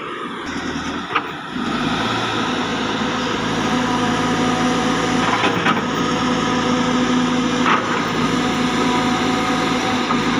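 Cat 320 GX excavator's diesel engine running steadily, getting louder about a second and a half in, with a few sharp knocks along the way.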